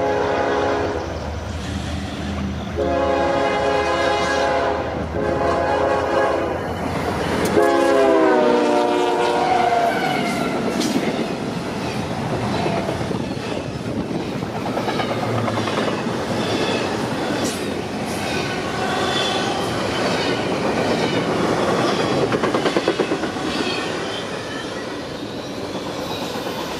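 Freight locomotive air horn, several notes sounding together, blown as a horn show in four long blasts; the last blast slides down in pitch as the locomotive passes. Then a double-stack container train rolls by, its wheels clacking over the rail joints.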